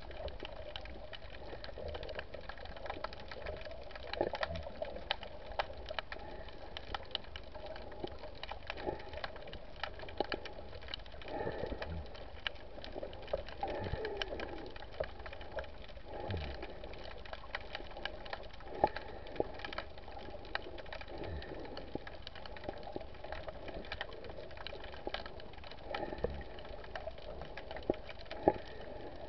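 Underwater soundscape: a dense, steady crackle of tiny clicks, typical of snapping shrimp. Now and then a brief low tone slides down in pitch.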